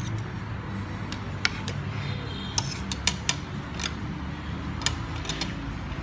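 Cutlery clinking and tapping against plates and bowls at a meal: a scattering of short sharp clicks over a steady low background hum.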